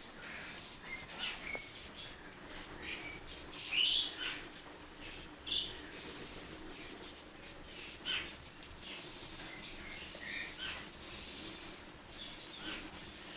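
Small birds chirping, with short calls scattered irregularly; the loudest comes about four seconds in, over a faint steady background hum.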